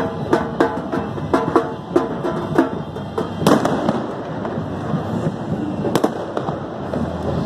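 Drums beating about four strokes a second, then two loud firecracker bangs about two and a half seconds apart, over a steady noisy background.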